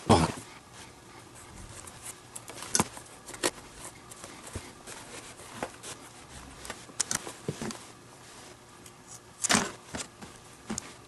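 Leather lace being drawn through the lace holes of a Mizuno Global Elite junior baseball glove with a metal lacing needle, with scattered clicks, rustles and handling knocks. A louder thump just after the start and another about nine and a half seconds in.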